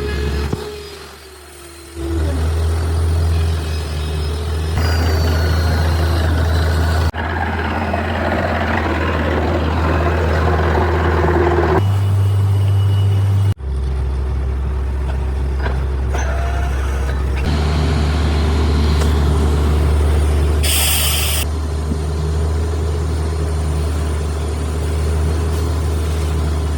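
A borewell drilling rig running with a loud, steady, low engine drone, with abrupt changes where separate takes are joined. A brief hiss sounds about three-quarters of the way through.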